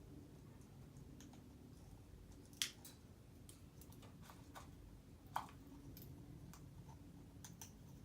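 African grey parrot making a scattered series of soft, sharp clicks, two of them louder, about two and a half and five and a half seconds in, over faint room hum.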